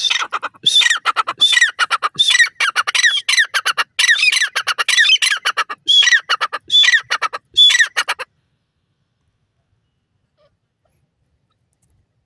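Grey francolin calling: a loud, rapid run of short repeated notes in quick bursts, many sliding down in pitch, which stops abruptly about eight seconds in.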